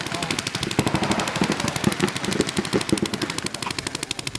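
Paintball markers firing in rapid strings of shots, about a dozen pops a second without a break.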